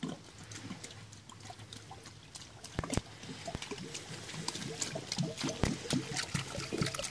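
Thick grease pouring out of a plastic jug into a barrel of bread, with irregular small splats and gurgles that grow busier in the second half.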